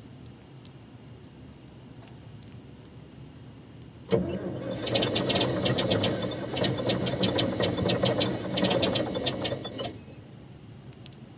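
Old Caterpillar landfill compactor's diesel engine being cold-started: about four seconds in, cranking begins suddenly and the engine fires unevenly with a rapid, irregular clatter. After about six seconds it cuts off abruptly and does not keep running.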